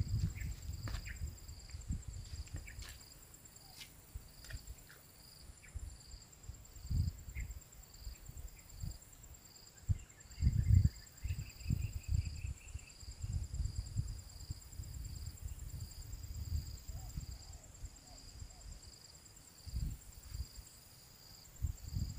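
Insects chirring: a steady high buzz with a second, pulsing chirp over it that repeats about twice a second. Irregular low rumbles and bumps come and go throughout, loudest about ten seconds in and near the end.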